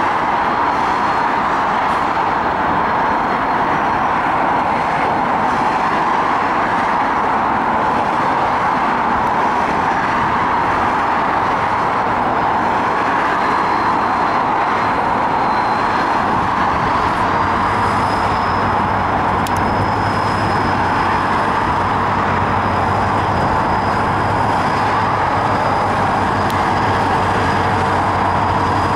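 Steady rush of motorway traffic alongside the line, with the low engine hum of an NIR 111 Class diesel locomotive (GM EMD two-stroke V12) growing in from about halfway as it draws nearer, hauling ballast hoppers, and a faint high whine joining later.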